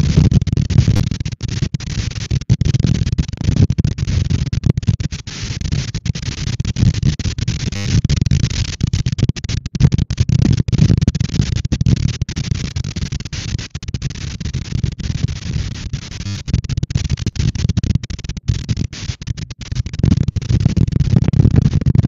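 Strong wind of about 42 km/h buffeting an outdoor microphone: a loud, gusting low rumble with hiss above it.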